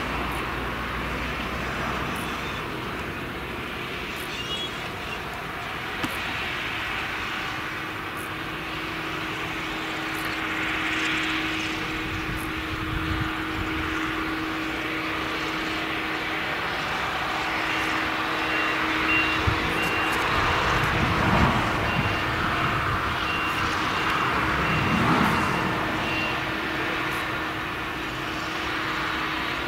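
Claas Jaguar 970 forage harvester, with its MAN V8 engine under load, chopping maize with a steady drone and whine, and a tractor running alongside under the discharge spout. The low rumble swells twice past the middle, and a high, intermittent beeping sounds for several seconds.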